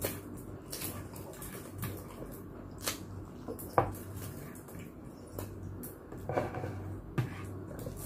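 Close-up chewing of lechon pata (pork knuckle), with scattered sharp clicks and crunches, over a faint steady low hum.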